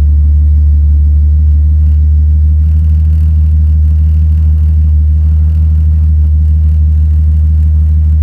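1988 Jeep XJ engine idling with a steady, deep rumble, then shut off near the end, its sound dying away within about a second. It is an engine being checked for a rough idle and weak, struggling starts.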